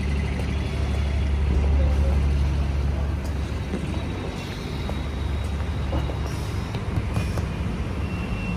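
A vehicle engine idling with a steady low hum, joined by a few light clicks and knocks.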